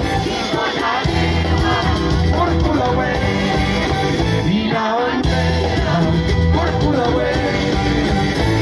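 Live Chilean folk-rock band playing through a loud PA, heard from among the audience: guitars, a steady bass line and drums, with a voice singing over them.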